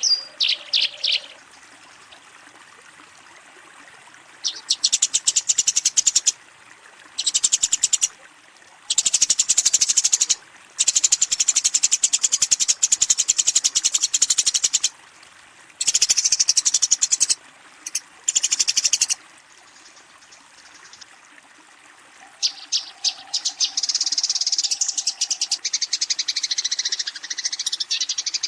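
Eurasian tree sparrow giving its rapid, high-pitched chattering fight call in bursts of one to three seconds with short pauses between, then a longer unbroken run of chatter in the last few seconds: the aggressive call used to challenge a rival.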